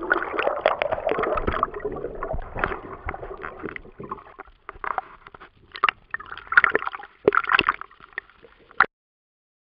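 Water gurgling and sloshing around an action camera held under water, with bubbles at first. It fades over the first few seconds, comes back in a few short bursts, and cuts off suddenly near the end.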